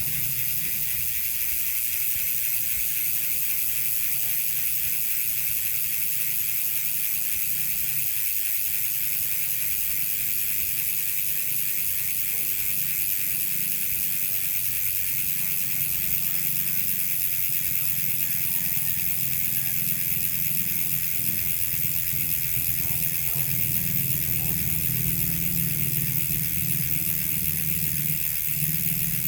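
SRAM X9 rear hub freewheeling, its three pawls clicking rapidly and continuously over the ratchet, with a low hum that grows louder in the second half.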